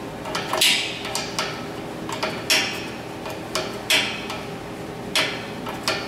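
Hand tool clinking on the metal fittings and pressure switch of an air compressor: four sharp clinks, each with a short ring, about a second and a half apart, with lighter ticks between, over a steady background hum.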